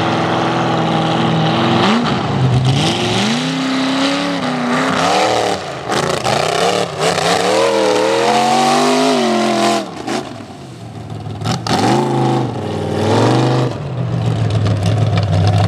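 Mega truck's engine revving hard and repeatedly, its pitch climbing and falling with the throttle, as it churns through a mud pit. The revs drop off around ten seconds in, then rise again briefly before settling to a steady run.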